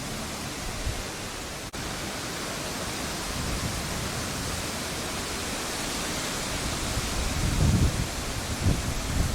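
Steady rush of fast-flowing floodwater, with louder low rumbles near the end.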